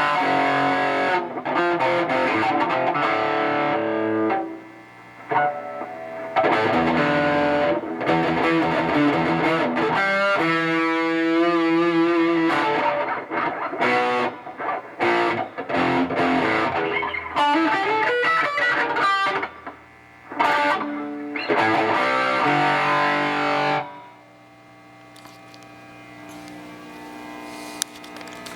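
Electric guitar played through a Fender Twin Reverb tube amp, restored after flood damage and cranked with some distortion: chords and single-note lines, with a wavering held note near the middle. The playing stops about four seconds before the end, leaving the amp humming.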